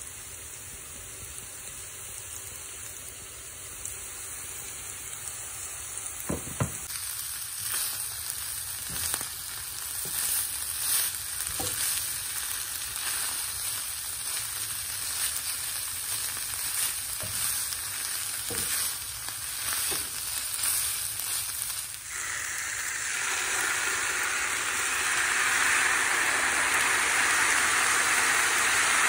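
Shredded chicken and onions sizzling in a hot frying pan, with scattered short knocks and scrapes as a spatula stirs them. About twenty-two seconds in, the sizzling turns louder and stays loud, with chipotle salsa in the pan.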